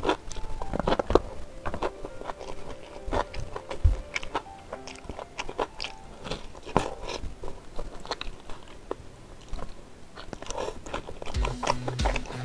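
Close-miked eating sounds of a person chewing spicy braised beef ribs and rice eaten by hand, with many short wet mouth clicks and smacks as meat is bitten off the bone. Faint background music is under it and grows louder near the end.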